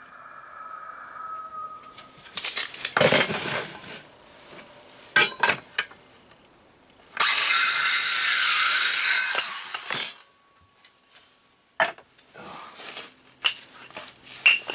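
Ryobi cordless circular saw cutting through a wooden frame board: a loud, steady cut of about two and a half seconds, starting about seven seconds in. Before it come scrapes and knocks of the board being handled and measured, and after it sharp knocks and clinks as the saw and wood are set down on the bench.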